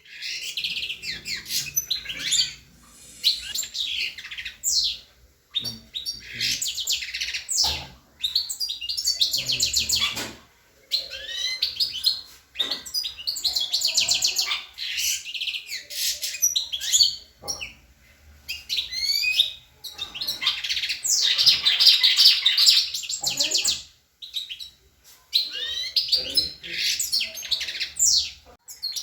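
Songbird singing: long phrases of fast twittering trills and sweeping chirps, a few seconds each, separated by short pauses.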